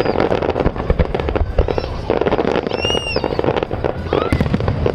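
Fireworks going off in a dense, continuous run of booms and crackles, with a short high whistle about three seconds in.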